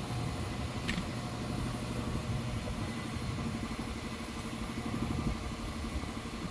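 Champion 5-horsepower three-phase air compressor running steadily, its pump giving a fast, even low pulsing. A single light click about a second in.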